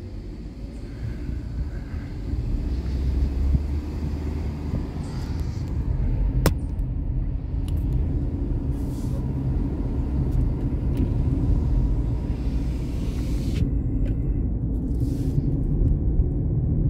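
Steady low rumble of a vehicle driving along a road, heard from inside, growing louder over the first few seconds, with one sharp click about six and a half seconds in.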